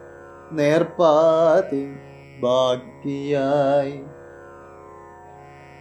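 A man chanting Malayalam poetry in a sung, melodic recitation style: two drawn-out phrases with a wavering pitch, then a pause of about two seconds.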